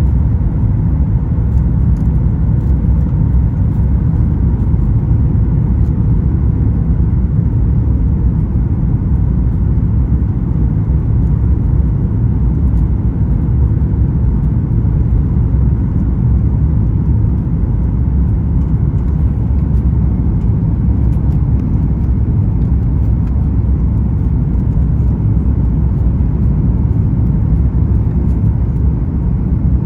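Steady, even low rumble of cabin noise inside a Boeing 737 MAX 9 airliner, with a faint steady hum running through it.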